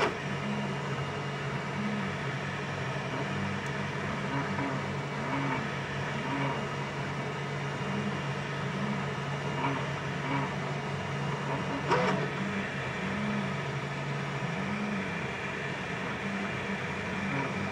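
FDM 3D printer running a print: stepper motors whine in short tones that rise and fall in pitch, about one a second, as the print head and bed move, over a steady low hum. A sharp tick about twelve seconds in.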